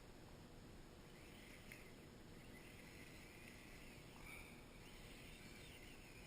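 Faint whine of a Kyosho Blizzard EV radio-controlled snowcat's electric motor, rising and falling in pitch several times, over a steady hiss.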